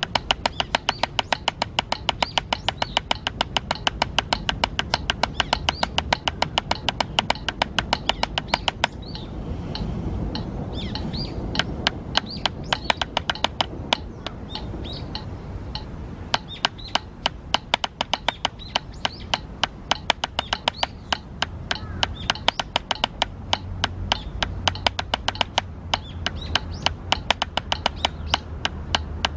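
Drumsticks tapping a drum practice pad in a steady, even rhythm of sharp strokes, with a short break about nine seconds in before the strokes start again. Birds chirp in the background.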